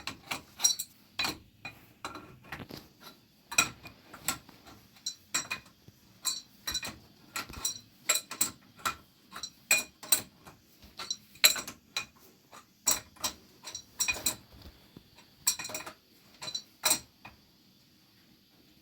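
Metal tools knocking and clinking in irregular sharp strikes, about two or three a second, during plumbing work, stopping near the end.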